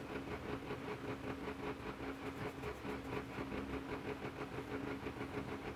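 Graphite pencil shading on paper: quick back-and-forth scratchy strokes in a steady rhythm as the rim of a drawn ellipse is filled in, over a faint steady hum.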